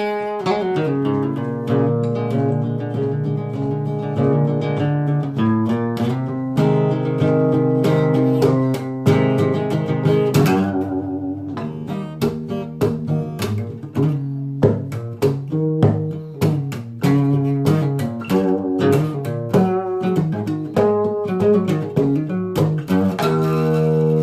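Solo acoustic guitar playing a blues tune, a steady stream of picked notes and chords.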